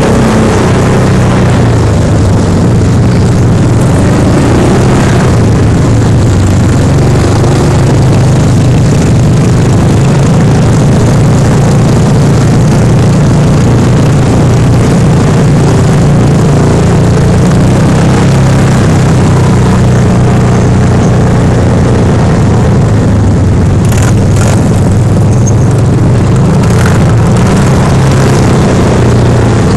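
Side-by-side UTV's engine running steadily under load as it drives through a shallow muddy water crossing and over rough rocky ground, heard from the cab. A few short knocks come near the end.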